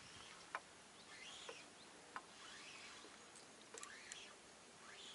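Near silence: faint open-air ambience with faint, distant bird-like calls recurring every second or so, and a few soft clicks.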